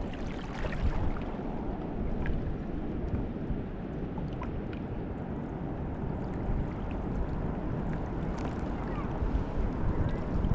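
Steady rushing of the fast-flowing Niagara River, mixed with wind buffeting the microphone, with a few faint ticks.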